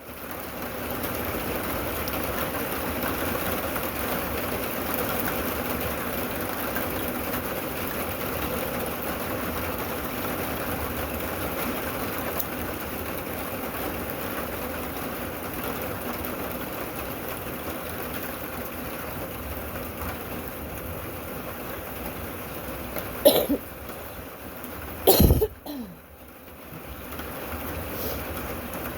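Steady rain falling. Near the end come two short, loud sounds about two seconds apart, the second with a falling pitch.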